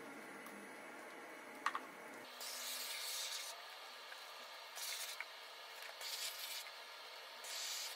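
Hands and a small hand tool rubbing and pressing a self-adhesive waterproofing sheet membrane down: four short scratchy rubbing strokes, each under a second, after a single sharp tap about two seconds in.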